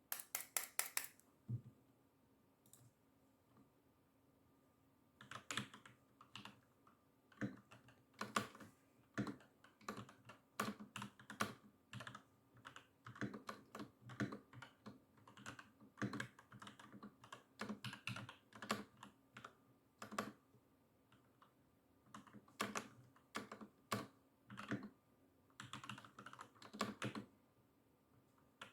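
Typing on an Epomaker Eclair 75 mechanical keyboard with pre-lubed Gateron Milky Yellow linear switches and lubed stabilizers: irregular keystrokes, a short flurry, a pause of about four seconds, then steady typing resumes.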